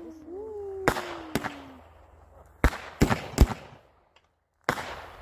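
Aerial fireworks bursting: a run of sharp bangs and crackles, five in the first three and a half seconds, then a brief hush and more bangs near the end.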